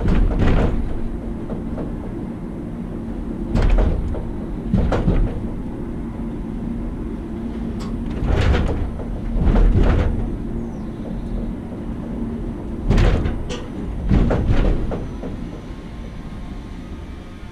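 Funicular car running on its track: a steady low rumble with a hum from the drive, broken by several clunks and rattles of the car. The hum stops about twelve seconds in and the rumble fades near the end.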